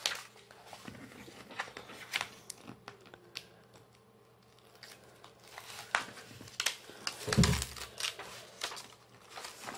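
Protective paper sheet being peeled and folded back off the sticky canvas of a diamond-painting kit: scattered paper crinkling and peeling, with a louder dull thump about seven seconds in.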